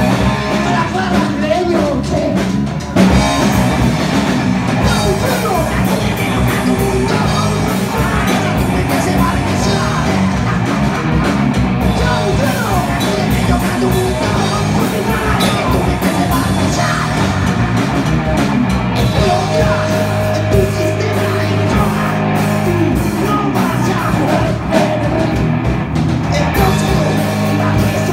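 Live hard rock band playing loud: distorted electric guitars and a drum kit, with singing over the top.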